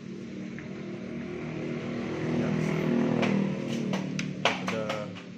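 A motor vehicle engine passing by, growing louder to a peak about three seconds in and then fading away, with faint voices and a few clicks near the end.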